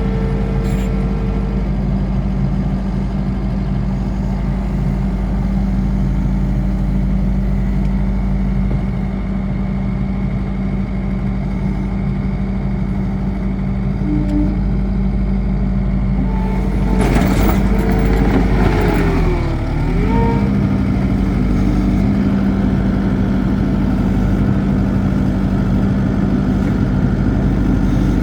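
Skid steer loader engine running steadily at high idle. About seventeen seconds in there is a few seconds of louder clattering, and the engine pitch briefly sags and recovers.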